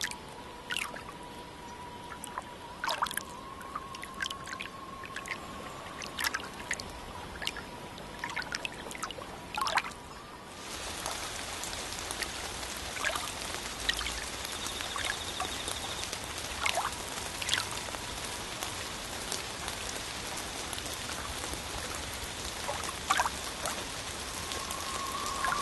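Trickling, dripping water sound: a steady hiss with scattered sharp drops. The hiss gets louder about ten seconds in.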